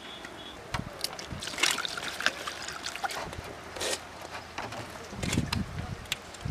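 Water being scooped and poured into a plastic bowl: small splashes and trickles with scattered light knocks and clicks.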